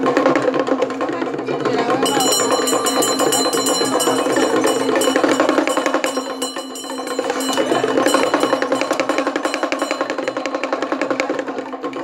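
Music of fast, evenly beaten drums and percussion over a steady held tone. About two seconds in, high ringing tones join.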